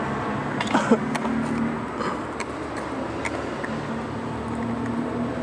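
Skateboard wheels rolling on asphalt with a few light clacks of the board, and a brief voice call about a second in.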